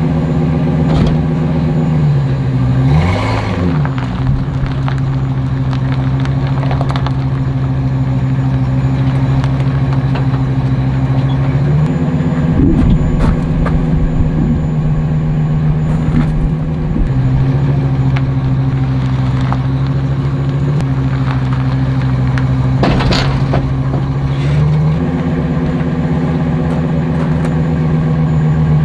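Ford F-350 Super Duty service truck's engine idling while it maneuvers, its pitch stepping up and down a few times as the driver eases on and off the throttle. A brief sharp knock comes near the end.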